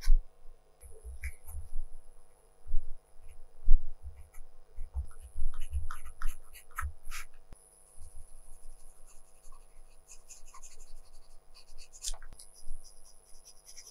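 Colored pencil tip scratching over watercolor paper in short, irregular strokes as leaf edges are outlined and shaded, with a few soft knocks of the hand and pencil against the paper. Near the end the strokes turn quicker and lighter.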